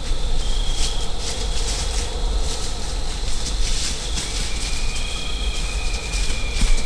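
Steady low rumble with scattered soft crackles. A thin high tone appears briefly twice, and a second one holds from a little past halfway.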